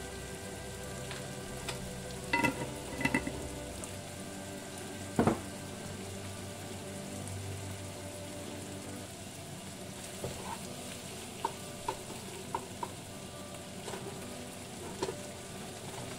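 Shell-on shrimp sizzling as they fry in butter in a nonstick skillet: a steady frying hiss broken by a few sharp clicks and pops, the loudest about five seconds in.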